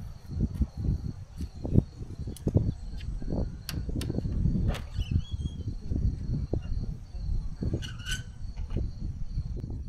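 Wind buffeting the microphone in uneven gusts, over a steady high chirring of insects and a few sharp clicks. Near the end there is a short creak as the wooden shed door is swung open.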